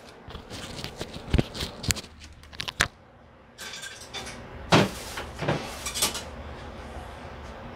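Workbench handling noises: a few sharp knocks and clicks, and the rustle of nitrile gloves being pulled off, then after a short pause a second stretch of rustling and clatter with a couple of louder knocks.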